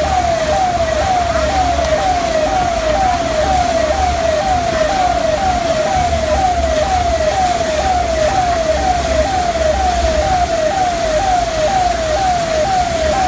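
Electronic siren wailing in quick rising sweeps, each dropping back sharply, about two a second at an even pace, over a steady hiss and low rumble.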